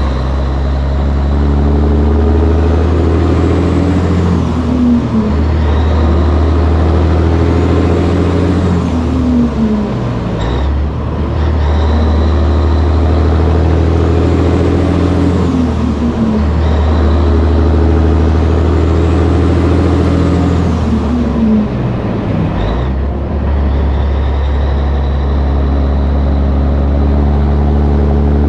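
Caterpillar diesel in a 1984 Peterbilt 362 cabover running hard under load through its exhaust stacks as the truck works up through the gears. The engine note breaks and picks up again about every five to six seconds, four times.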